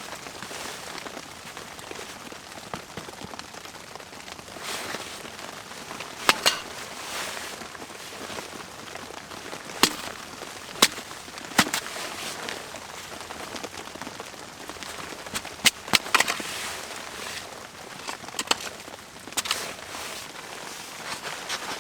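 Wood fire crackling, with sharp pops at irregular intervals over a steady hiss.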